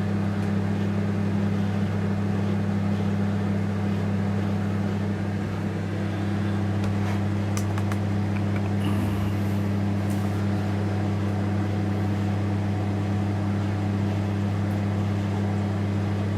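LG MH-6347DRB microwave oven running on heat, a steady low hum with its fan, now heating normally after the repair of its 'hums but doesn't heat' fault. A few faint clicks come in about halfway through.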